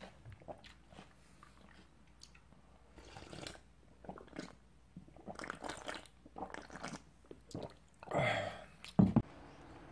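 A person chewing and crunching a mouthful of watermelon punch with ice, in irregular crunches and small clicks. Just after eight seconds comes a louder rustling stretch, then one sharp knock, the loudest sound, as the bowl is handled.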